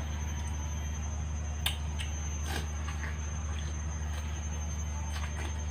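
A few short, wet bites and mouth sounds of watermelon being eaten, the loudest about a second and a half in, over a steady low hum and a faint high steady tone.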